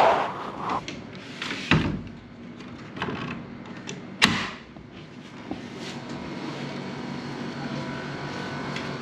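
Car engine running steadily inside a taxi, with several sharp knocks and thumps: the loudest at the very start and about two and four seconds in.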